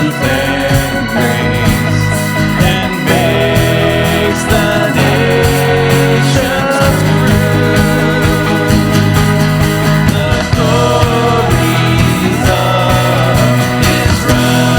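Worship band music playing loudly and steadily, with an organ-like keyboard over bass.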